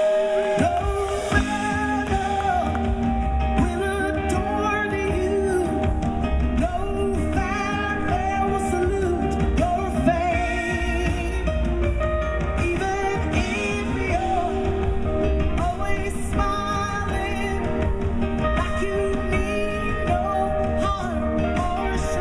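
A woman singing lead vocals live over a band: electric guitar, bass and percussion, with the bass coming in at the very start.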